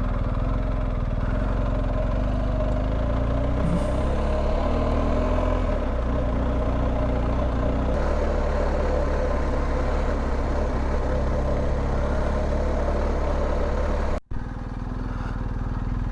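BMW R1250GS's boxer-twin engine running steadily while riding. The sound cuts out for an instant near the end, then resumes.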